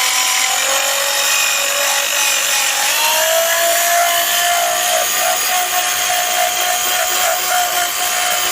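Electric drill boring a hole through a piece of wood, its motor whining steadily over the cutting noise. The pitch steps up slightly about three seconds in.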